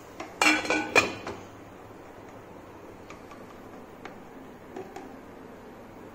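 A stainless steel lid clattering and ringing as it is set down on a metal kadai, about half a second in. A few faint clicks follow as the gas stove's knob is turned.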